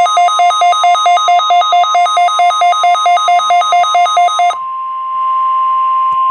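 A weather radio sounding its alert: a rapid, pulsing two-pitch beep over the steady 1050 Hz National Weather Service warning alarm tone. About four and a half seconds in, the beeping stops and the steady alarm tone carries on alone with a little hiss, then cuts off at the very end.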